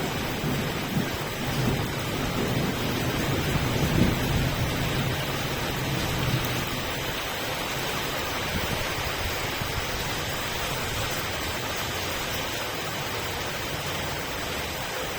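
Steady rain falling, an even hiss throughout. A low rumble underneath dies away over the first few seconds.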